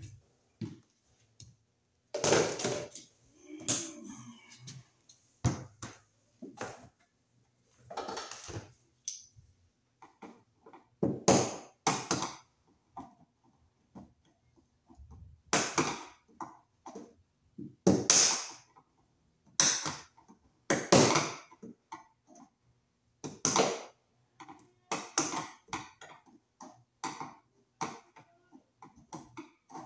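Pliers working at a plastic Bakelite electrical box: an irregular string of short scrapes, snaps and clicks, a second or two apart.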